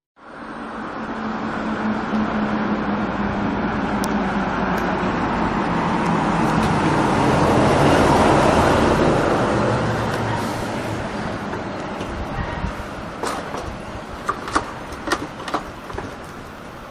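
A motor vehicle running. It starts abruptly, swells to its loudest about eight seconds in and then eases off, with a few sharp clicks near the end.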